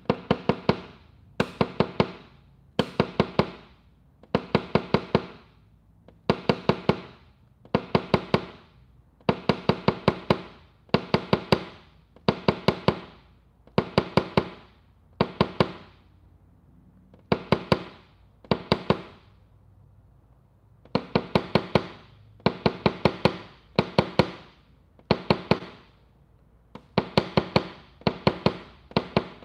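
PDR tap-down tool struck with a light hammer against a car body panel, knocking the metal level after a glue pull. The taps come in quick clusters of four to six, about one cluster a second, with a couple of short pauses, and each tap makes the sheet metal ring briefly.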